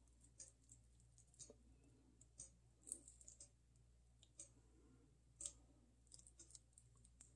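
Faint, irregular light clicks and small taps over a low room hum, with a couple of sharper ones about three and five and a half seconds in.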